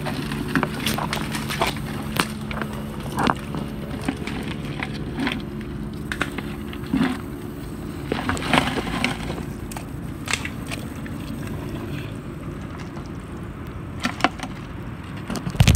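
Clicks, scrapes and crackles from moving through mangrove mud among dry roots and twigs, with a steady low hum underneath that fades out about three quarters of the way through.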